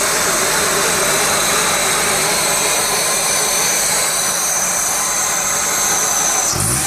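2002 Honda Accord engine idling steadily, with the misfire it has. Near the end the engine begins to rev up, its pitch rising.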